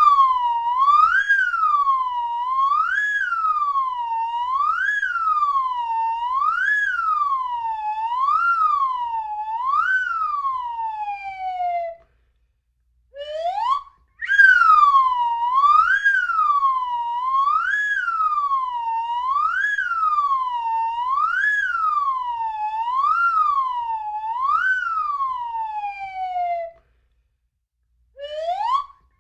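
Slide whistle played continuously, its pitch swooping up and down about once every two seconds. It plays two long runs, each ending in a falling glide. Between them are short pauses and quick rising swoops.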